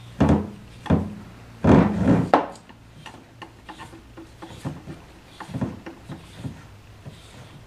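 Handling noise from a long threaded lead screw and its anti-backlash nut on a wooden bench top: several loud rubbing scrapes and knocks in the first two and a half seconds, then lighter clicks and taps.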